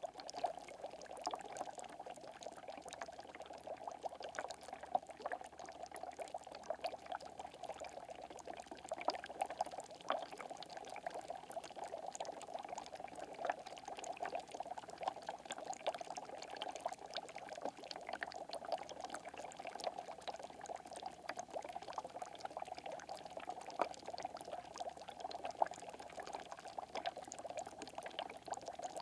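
Water bubbling in small, dense bursts, a continuous fizz of tiny pops with no pauses.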